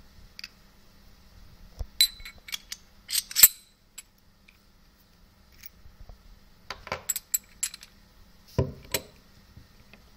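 Sharp metallic clicks and clinks of a steel ABLOY PL-358 padlock as its detachable shackle is fitted into the body and the key is turned in the cylinder, in two clusters. Two duller knocks near the end, as the padlock is set down on the cloth.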